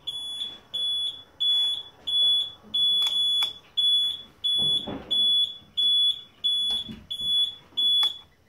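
An electronic beeper fitted to the motorcycle beeping steadily while the indicator flashes, a short high beep a little under twice a second. The beeping stops near the end when the indicator is switched off.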